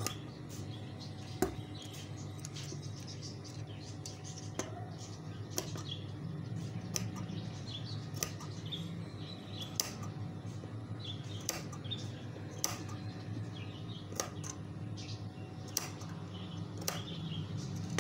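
Large steel tailor's shears snipping through cloth, a sharp snip about every one to one and a half seconds, over a low steady hum.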